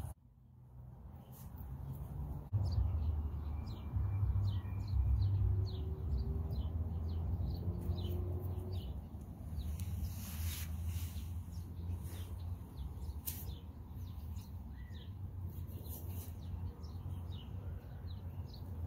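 Small birds chirping steadily in quick, short falling notes, over a low steady rumble.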